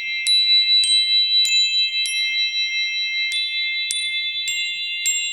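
Gentle instrumental music: bright chime-like notes struck about every half second, each ringing briefly, over a steady high drone of several held tones.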